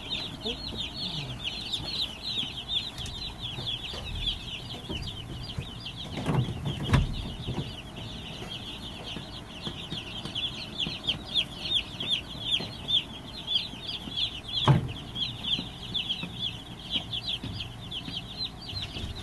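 A brooder full of day-old Cornish cross broiler chicks peeping: a dense chorus of short, high, falling peeps. A few dull knocks stand out about a third of the way in and again about three-quarters through.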